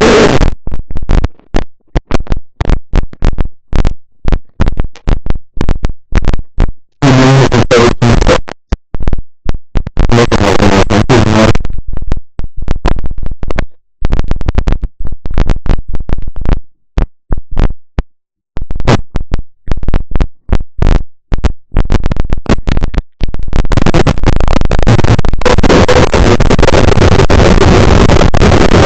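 Loud crackling static from a faulty microphone: rapid clicks and pops with short dropouts, two bursts of harsh noise in the first half, and an unbroken wash of static over the last five seconds.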